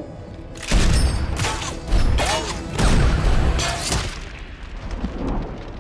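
A volley of movie gunshots: four or five loud shots between about one and four seconds in. Each is a sharp crack with a deep boom, and the last ones ring away.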